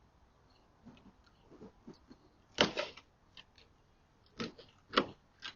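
Sharp cracks and knocks from someone wrenching at a parked car's side-view mirror. One loud crack comes about two and a half seconds in, then three more in quicker succession near the end.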